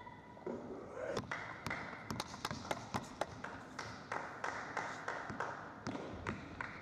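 Sparse, uneven applause from a small crowd: scattered handclaps in an irregular patter after a point.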